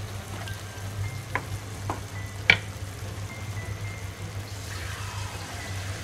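Wooden spatula stirring chopped bottle gourd in its cooking water in a pan, knocking against the pan four times, the sharpest about two and a half seconds in, over a faint sizzle and a low steady hum.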